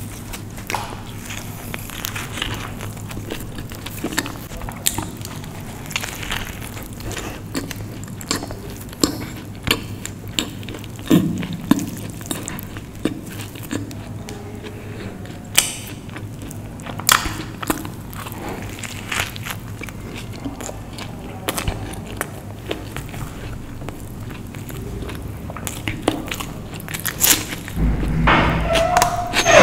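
Close-miked biting and chewing of a soft-bun aloo veg burger, with many irregular wet mouth clicks. A louder, longer noise comes near the end.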